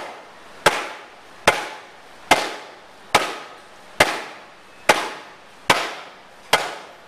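Hand tamp, its head wrapped in a plastic bag, pounding freshly laid wet mound clay: eight even strikes, a little more than one a second, each a sharp slap that dies away quickly.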